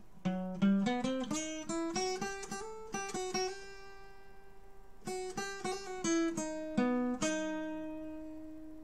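Acoustic guitar playing a picked single-note intro figure in the key of B, climbing note by note. After a short pause it plays a second phrase that ends on a note left ringing.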